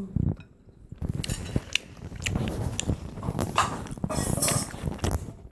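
Eating at a table: chewing on a mouthful, with the clicks of utensils against dishes.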